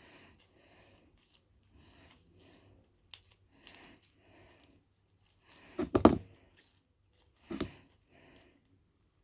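Slime mixture being stirred by hand, a soft rhythmic scraping and squishing about one and a half strokes a second, with two louder bumps about six and seven and a half seconds in.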